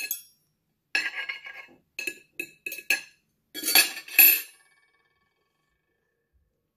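Cutlery clinking and scraping on a plate: a scrape about a second in, four quick ringing clinks, then a louder clatter before it stops.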